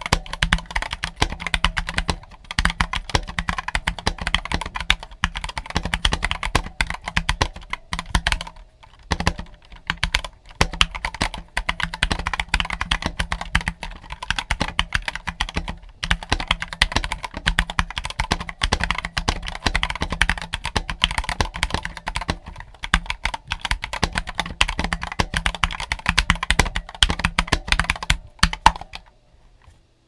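Continuous typing on a Boyi IK87 tenkeyless mechanical keyboard with stock Gateron Yellow linear switches, a steel plate with minimal dampening, and XDA-profile PBT keycaps. It is a dense run of keystrokes with short pauses about nine and sixteen seconds in, and the typing stops shortly before the end.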